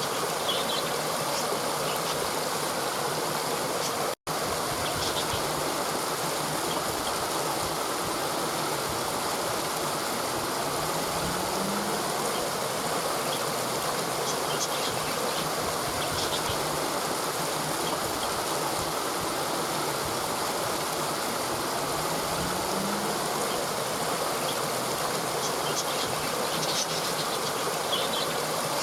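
Steady rushing of a waterfall, an even wash of falling water that cuts out for a split second about four seconds in.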